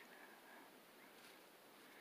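Near silence: room tone, with a faint tick or two.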